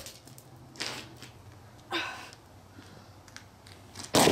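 A hammer strikes a whole turkey frozen rock-hard in liquid nitrogen with one sharp, loud crack near the end, knocking frozen chunks off it. Two softer noises come before the hit.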